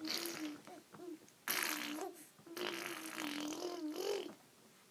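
A young child making funny vocal sounds in three bouts, the last the longest. Each is a held, fairly steady note with a breathy, spluttery noise over it.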